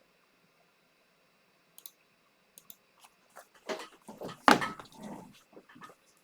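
Handling noises on a workbench: a few scattered clicks, then a run of knocks and rustling, the loudest knock about halfway through, as the MacBook is moved into position under the microscope.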